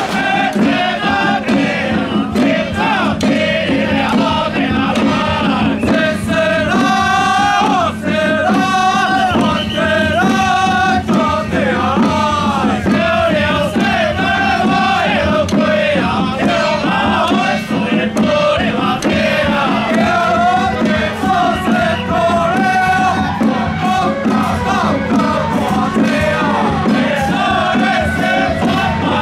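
Loud temple procession music, a high melody bending and wavering in pitch over a steady low drone, without a break.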